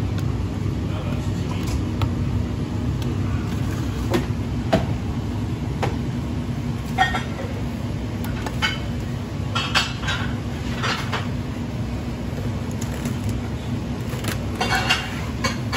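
Steady low mechanical hum of kitchen equipment, with scattered light clinks and taps as food and containers are handled on a stainless steel bench and pan.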